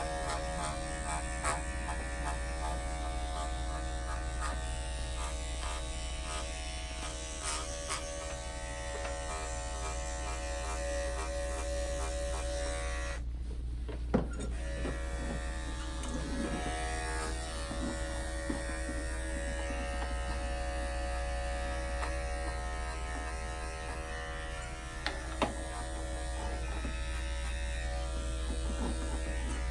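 Andis 5-speed electric dog clippers running steadily while clipping a Shih Tzu's coat, with a short drop-out about halfway through and a few light clicks.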